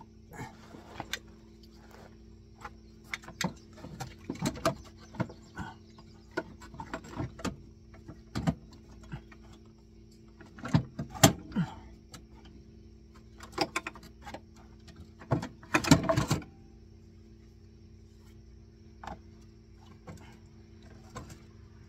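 Irregular metallic clicks, knocks and scrapes as a winch mounting bracket is handled and fitted against the four-wheeler's front frame. The knocks come thickest about eleven seconds in and again near sixteen seconds. A steady low hum runs underneath.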